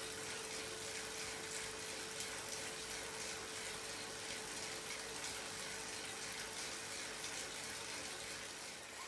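Indoor direct-drive bike trainer running steadily under a rider pedalling a climb: an even hiss with a faint constant hum.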